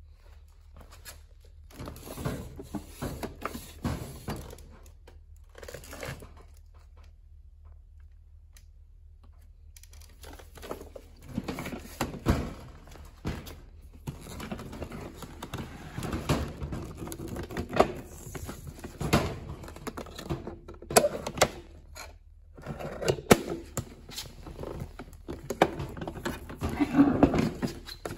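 Irregular plastic clicks, knocks and rustles from hands handling a Kenmore Progressive canister vacuum's corrugated hose and plastic canister body, with the motor not running. There is a pause of a few seconds about a third of the way in.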